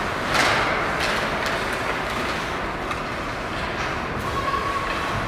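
Ice hockey play in an arena: a steady rush of skates scraping the ice and rink noise, with a sharp clack of stick and puck about half a second in and a few lighter knocks soon after.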